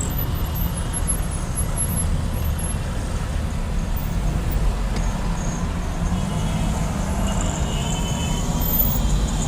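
Street traffic: a steady low rumble of car and truck engines, with faint high-pitched tones in the second half.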